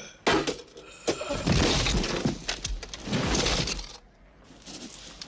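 Film sound effects of an armoured warrior collapsing onto stony ground: a sharp hit about a quarter second in, then heavy crashing and clattering for about three seconds, dying away at about four seconds.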